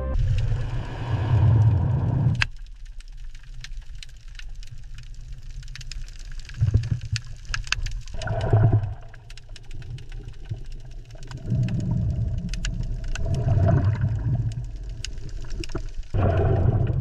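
Deep low rumbling that swells and fades in surges of one to three seconds, with scattered sharp clicks and crackles throughout.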